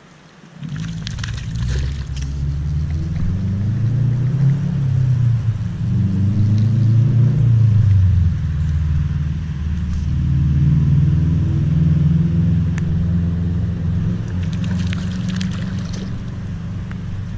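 A vehicle engine comes in abruptly under a second in and runs, its pitch rising and falling as it speeds up and eases off. There is some light rattling near the start and again near the end.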